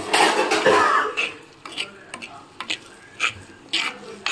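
A steel spoon stirring chopped shallots frying in oil in a clay pot, with sizzling and scraping against the pot. It is densest in the first second, then goes on as short separate scrapes about twice a second.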